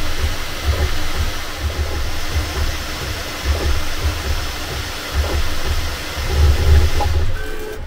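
Bambu Lab 3D printers running: a steady rush of cooling fans over irregular low thuds from the moving axes. Near the end the fan rush drops away and steady motor tones remain as a print finishes.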